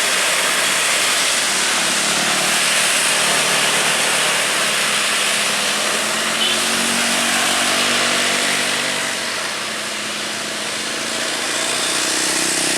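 Diesel dump truck passing on an uphill road, engine running under load amid a dense rushing noise; the engine's tone stands out most clearly midway, and the sound eases slightly about ten seconds in.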